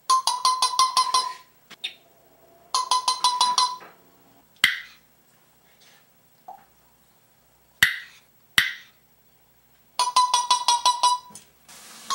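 African grey parrot making a rapid pulsing, beep-like call in three bursts of about a second each, with a few short sharp chirps in between.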